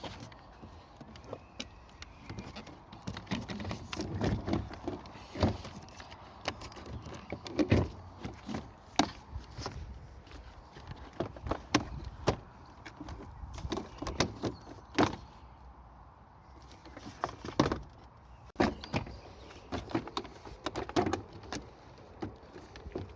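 Irregular clicks and knocks of hands working on a car door's interior trim and locking switch, a few sharp taps every second or so with short pauses between.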